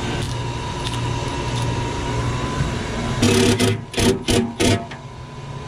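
A handful of sharp metallic clanks and rattles, five or so in quick succession about three to five seconds in, over a steady mechanical hum.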